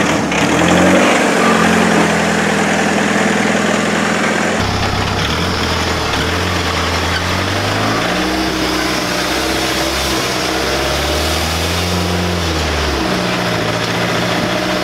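Jeep TJ's engine pulling at low revs while the Jeep crawls up a rock-and-dirt climb in the Atlas transfer case's 5.44:1 super-low range, the revs rising and dipping slightly with the throttle. The sound changes abruptly about four and a half seconds in.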